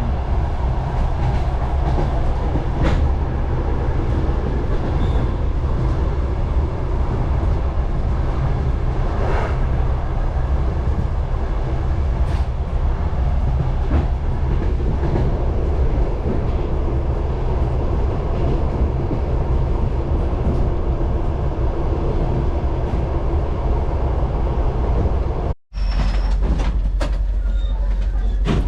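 Railway passenger car running along the track, heard from inside: a steady low rumble with scattered sharp clicks of the wheels over rail joints. The sound cuts out for a moment near the end and then resumes with a heavier low rumble.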